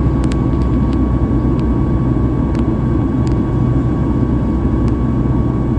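Cabin noise inside a Boeing 737 MAX 8: the steady roar of its CFM LEAP-1B jet engines and the airflow, with a thin steady whine above it and a few faint ticks.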